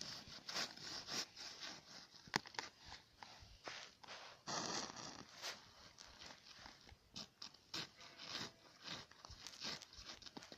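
Twigs and dry brush being handled and shifted at a campfire: faint, irregular rustling and scraping with scattered small snaps and clicks, and a longer rustle about four and a half seconds in.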